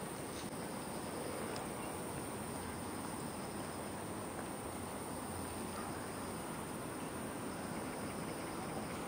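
Steady outdoor background noise with faint, high insect chirring coming and going above it.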